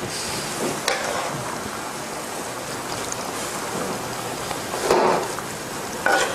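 Beef chop steak in a wine sauce simmering and sizzling in a frying pan, a steady bubbling hiss, while a wooden spatula stirs it, with a few scrapes and knocks against the pan.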